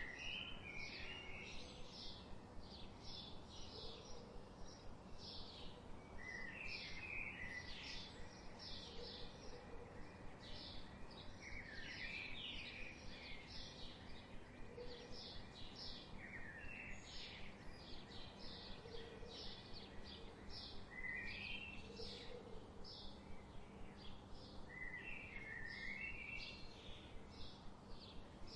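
Songbirds calling: rapid high chirps run on throughout, with a short warbling song phrase coming back every few seconds, over a steady faint background hiss.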